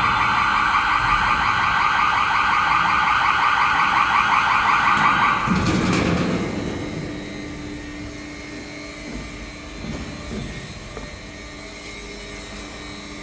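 Machine warning alarm, a loud, rapidly pulsing electronic tone, cuts off about six seconds in with a clunk. A quieter low, steady machine hum follows.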